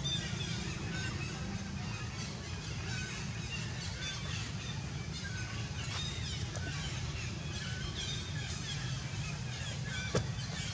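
A busy chorus of short, high chirping bird calls, overlapping throughout, over a steady low hum, with one sharp knock about ten seconds in.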